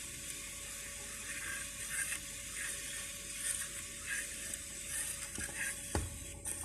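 Faint handling of an empty plastic cassette shell: small scattered rattles and rustles of the plastic case and reels, with one sharp click near the end.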